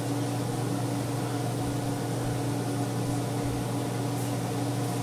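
Steady motor hum, a low drone with a few faint held tones above it, holding unchanged.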